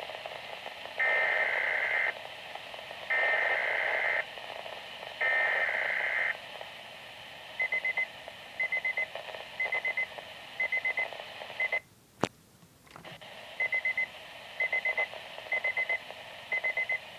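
Weather radio alert: three one-second bursts of buzzing SAME digital header tones, the loudest sounds here. Then short trills of electronic beeps from the receiver's alarm, about one a second. The beeping breaks off with a click and a moment of silence partway through, then resumes, over a steady radio hiss.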